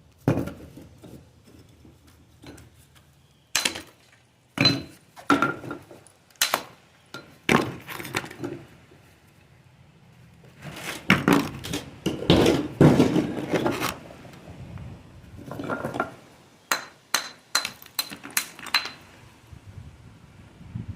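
Metal masonry tools striking and scraping stone: irregular sharp clinks and knocks, some of them ringing, with a busier run of strikes and scraping in the middle.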